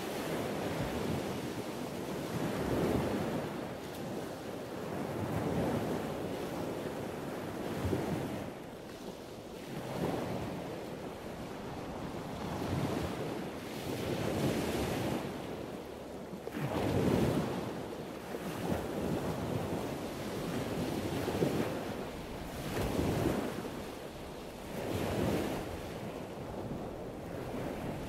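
Wind buffeting the microphone in gusts every two to three seconds, over a steady wash of sea surf.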